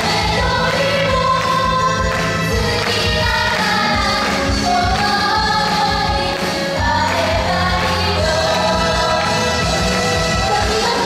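Japanese idol pop song: a loud backing track with a steady beat and a group of young women singing the melody together.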